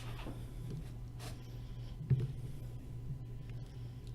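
Quiet room tone: a steady low hum with a couple of faint taps or knocks, about one and two seconds in.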